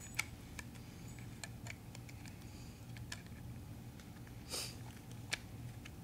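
Faint scattered clicks and taps of the hard plastic shell of an Otterbox Defender case being pressed and snapped together around an iPhone, with a short scratchy rustle about four and a half seconds in. A low steady hum runs underneath.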